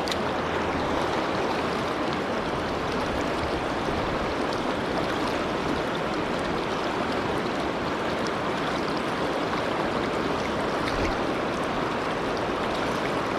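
Steady rush of a mountain trout river flowing over rocks.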